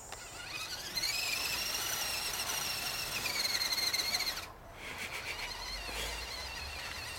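Axial SCX10 RC crawler's brushed 21-turn Traxxas motor and drivetrain whining under throttle as the truck spins its tyres through deep snow. The whine rises in pitch over the first second or so, holds steady, then cuts off suddenly about four seconds in, leaving a quieter, rougher sound.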